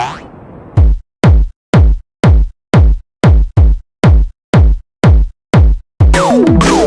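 Electronic music: a run of about eleven deep drum-machine kicks, each dropping sharply in pitch, about two a second with silence between. About six seconds in, a busy electronic track with falling synth sweeps comes in.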